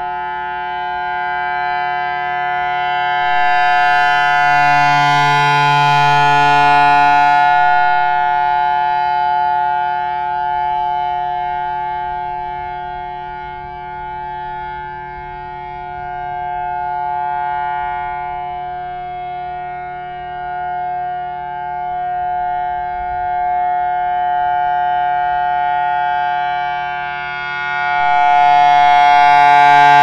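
Federal Signal Thunderbolt outdoor warning siren sounding a steady, unwavering tone for a siren test. The horn rotates, so the sound swells loudest around five seconds in and again near the end, and fades in between.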